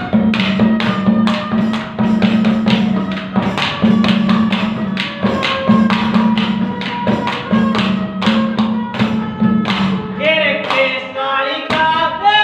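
Ragni instrumental passage: a hand drum beating a steady, quick rhythm over held harmonium notes. Near the end a man's voice comes in, singing over the accompaniment.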